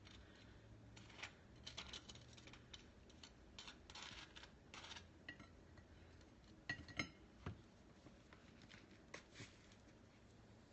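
Near silence with faint, scattered clicks and scrapes of toast, a knife and a plate being handled, and a few sharper clicks a little past the middle.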